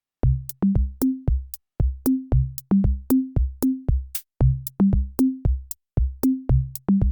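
Background music: an electronic drum-machine beat of sharp clicky hits with low pitched drum tones, about three a second, starting a moment in.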